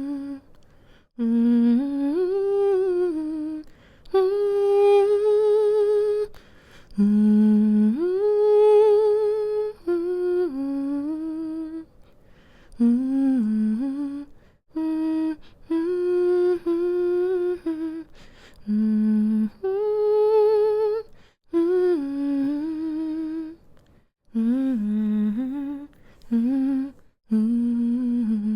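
A woman humming a slow, soothing lullaby to put a baby to sleep, in phrases of held and gently sliding notes with short pauses for breath between them.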